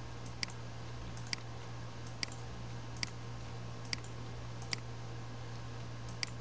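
Computer mouse clicking, seven short sharp clicks at roughly one-second intervals, over a steady low electrical hum.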